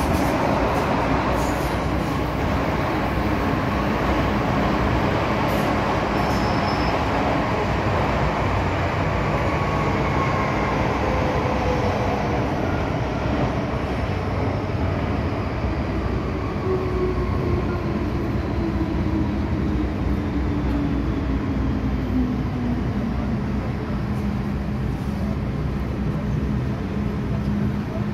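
MTR M-Train electric multiple unit running on the line, with a steady rumble of wheels and running gear. Over its middle stretch a motor whine falls steadily in pitch as the train slows.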